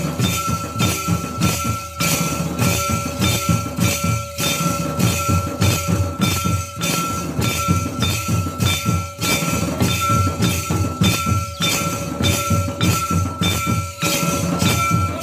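Traditional Santali ritual drumming: a barrel drum beaten in a fast, even rhythm with metallic jingling on each stroke, and a steady high tone underneath.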